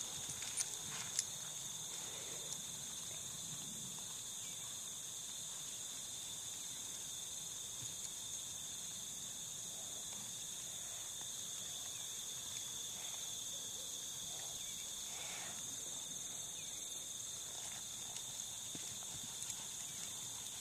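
Crickets chirring steadily in the evening background, with faint, soft hoofbeats of a horse loping on arena sand and a few light clicks near the start.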